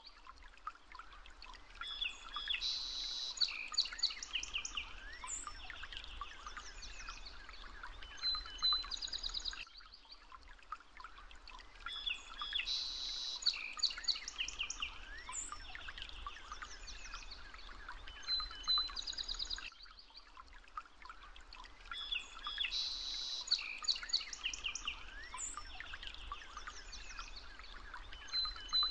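Birdsong: chirps and trills from several birds, in a sequence that repeats the same way about every ten seconds, as a looped recording does.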